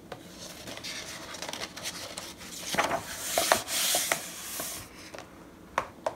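A page of a large hardcover picture book is turned, then a hand sweeps across the open spread to flatten it. The paper rustles and rubs, loudest in the middle, and two light clicks come near the end.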